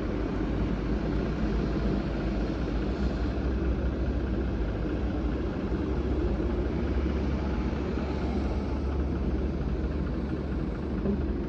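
A heavy engine running steadily at an even speed, most likely the machine holding the chained leaf-spring pack, with a strong low hum.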